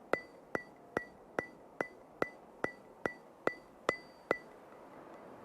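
Evenly spaced sharp ticks, each with a brief high ring, about two and a half a second; they stop about a second before the end.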